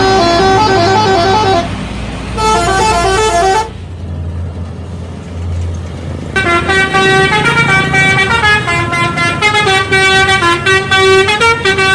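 Bus telolet horn playing quick melodic runs of stepped multi-trumpet horn notes. Two short bursts come in the first few seconds, then a bus engine's low rumble alone for about two seconds, then a longer unbroken run of horn tunes from about halfway in.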